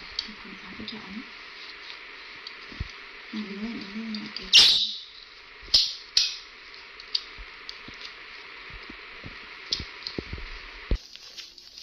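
Cloth rustling and small clicks as a baby macaque is handled and dressed in cloth pants, over a steady hiss. There is a sharper rustle about four and a half seconds in, and two short low voice murmurs.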